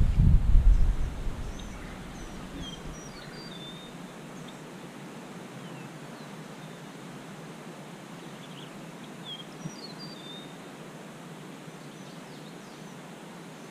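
Outdoor ambience at a pond: a steady soft hiss with scattered short bird chirps throughout. A loud low rumble on the microphone fills about the first second, then dies away.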